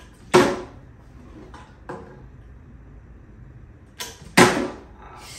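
Plastic water bottle flipped and landing with a sharp knock on a stone tabletop, once about a third of a second in and again near the end, where a lighter knock is followed quickly by a louder one.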